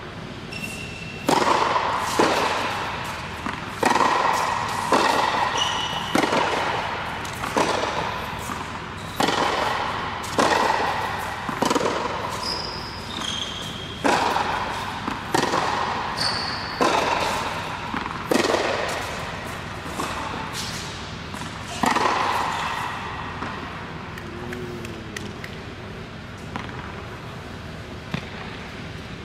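Tennis rally in a large indoor hall: racket strokes and ball bounces as sharp, echoing knocks about once a second, with a few short high squeaks from shoes on the court. The rally stops about three quarters of the way through, and one more light knock follows near the end.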